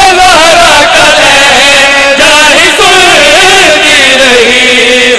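A man's voice chanting a line of devotional Urdu/Punjabi poetry as a long, wavering melody with drawn-out notes, sung by a zakir (majlis orator).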